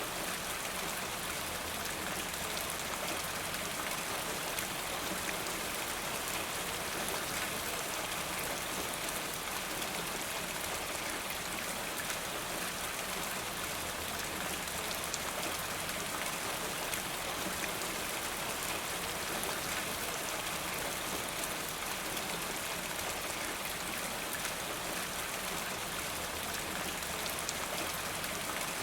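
Steady, constant rain, many drops pattering with an even hiss that does not change.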